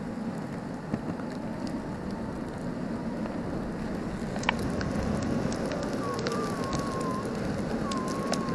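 ACTON Blink Lite V2 electric skateboard rolling over asphalt on its green urethane wheels: a steady rolling rumble with small scattered clicks. A faint wavering tone comes in about six seconds in.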